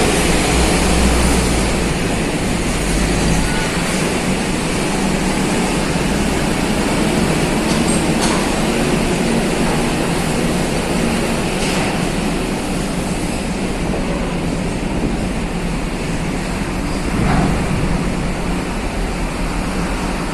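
Loud, steady mechanical rumble and roar inside a ferry's car deck while vehicles are loaded, with a few faint knocks.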